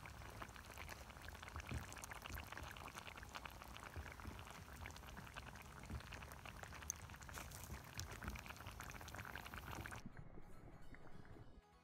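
Coconut-milk fish and ackee run down simmering in a cast-iron pot over a wood fire: soft bubbling with many small pops and crackles, thinning out about ten seconds in.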